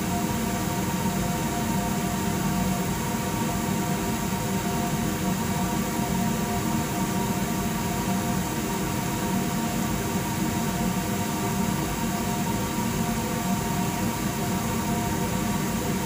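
A steady machine hum: several held tones over an even hiss, unchanging.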